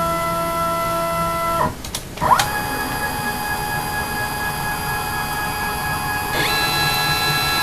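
CNC mini mill's Z-axis stepper motor whining as it drives the mill head upward, a steady multi-tone electronic whine. It drops out briefly about two seconds in, comes back with a quick rise in pitch as the axis speeds up, and steps up in pitch again near the end.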